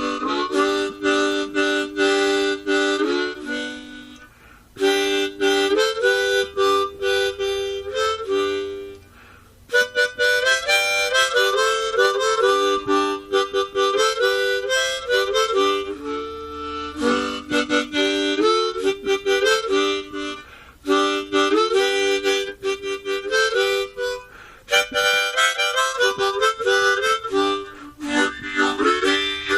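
Instrumental background music: a reedy melody played in chords, in phrases of several seconds separated by brief pauses.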